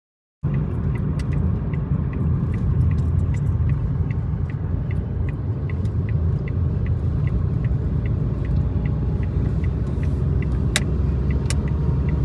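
Car cabin road noise: a steady low rumble from the moving car, starting about half a second in, with an evenly ticking turn-signal indicator about two or three clicks a second and two sharper clicks near the end.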